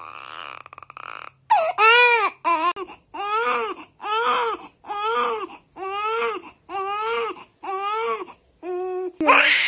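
Newborn baby crying: a fainter cry at first, then a run of short, regular wails, about one a second, each rising and falling in pitch. A louder cry starts near the end.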